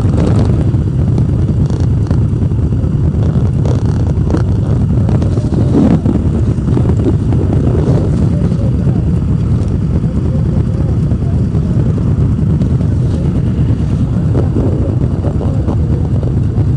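Several motorcycle engines idling together, a steady low engine sound.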